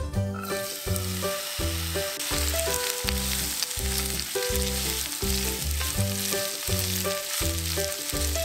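Sliced onions sizzling in hot oil in a frying pan. The sizzle starts about half a second in as the onions go into the pan and keeps up while they are stirred with a spatula.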